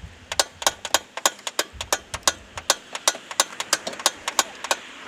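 A quick, uneven run of sharp clicks or knocks, about five a second, starting just after the beginning and stopping shortly before the end.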